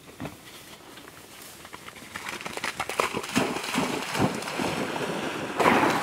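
A dog splashing through shallow water at a run, with quick uneven splashes that start faint and grow louder, and the loudest splash just before the end.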